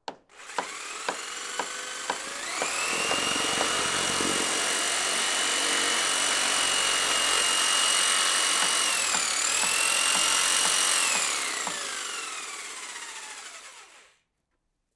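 An electric power tool's motor spins up with a rising whine and runs steadily. It dips briefly about nine seconds in, as if loaded, then winds down slowly and stops, while the counter is cut open for a glass rinser.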